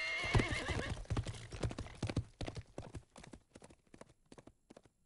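A horse whinnies, then its hoofbeats gallop off and fade into the distance.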